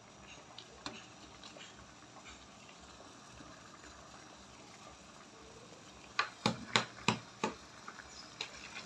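Water with cauliflower in it simmering faintly in an aluminium pot, with small scattered ticks. About six seconds in, four sharp knocks come in quick succession.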